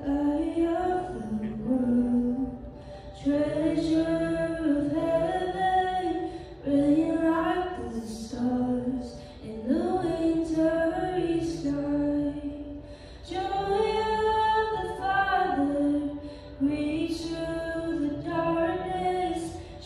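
A woman singing a slow worship song into a microphone, in phrases a few seconds long with short breaks between them.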